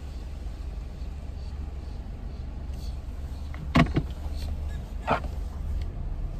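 Low steady rumble of a car engine idling, heard from inside the car. About four seconds in come two quick sharp clicks close together, and a second later one more short sharp sound.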